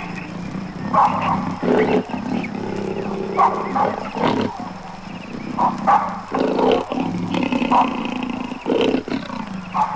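Wild African animals calling, from a vintage field-recording record: a run of short, rough calls coming about once a second over a steady low drone.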